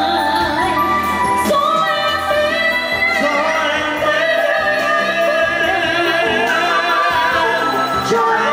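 Music with a woman singing, her held notes wavering with vibrato over an instrumental accompaniment.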